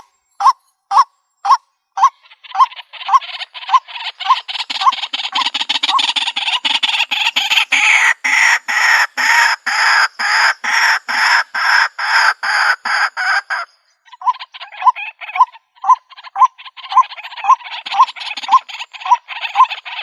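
White-breasted waterhen calling: a run of repeated notes at about two a second, which thickens into a dense, noisy stretch of calls through the middle, breaks off briefly about two-thirds through, then goes on in the same paced series.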